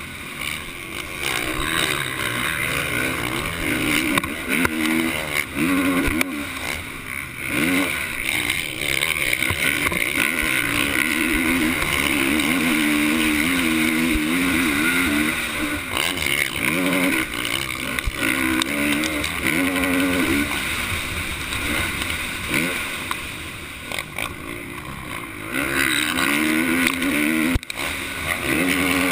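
A 450-class motocross bike's engine, heard up close from a camera mounted on the bike, revving hard and repeatedly rising and falling in pitch as the rider works the throttle and gears. It goes quieter for a few seconds about three quarters of the way through, then picks up again.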